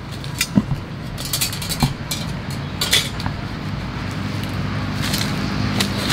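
Steel swords clinking and rattling against each other as a bundle of them is handled and set down, several sharp clinks in the first three seconds. A steady low hum grows louder in the background from about four seconds in.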